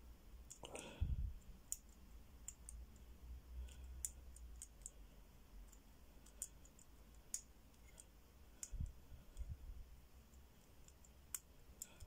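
Faint, irregular clicking of a four-wheel combination padlock's number wheels being turned a notch at a time while tension is held on the shackle to decode the combination.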